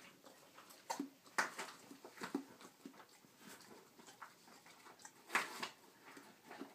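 A basset hound working at a rug with its muzzle close to the microphone: irregular short snuffles and rustles, the loudest about a second and a half in and again near five and a half seconds.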